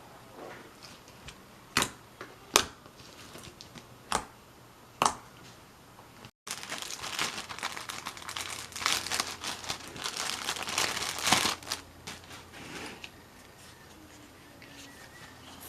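Slime being handled: four sharp pops or clicks in the first five seconds, then after a cut several seconds of dense crinkling and crackling that dies down to faint handling noise.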